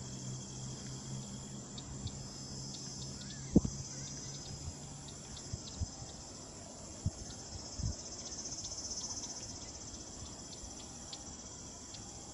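Crickets and other insects chirping steadily, swelling louder about two-thirds of the way in. A low hum fades out over the first few seconds, and a few short knocks sound.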